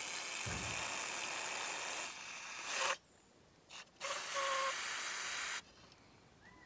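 Aerosol can of brake parts cleaner spraying into the vacuum pump's brass one-way-valve fitting in two bursts. The first hiss lasts about three seconds; after a pause a second one lasts about a second and a half, with a brief faint whistle in it.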